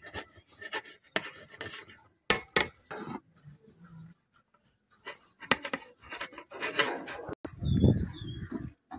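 Metal ladle scraping and scooping through cooked biryani rice in a large metal pot, with irregular scrapes and light clinks against the pot's side, pausing briefly about halfway through.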